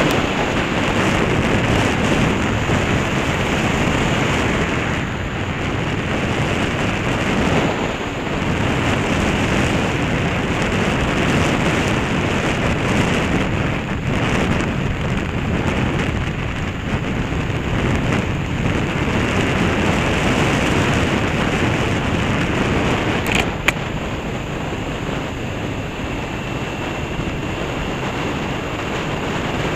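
Wind buffeting the microphone of a camera on a moving Honda CB500 motorcycle, a steady rushing roar with the bike's running and road noise beneath it. A single sharp click about three-quarters of the way through.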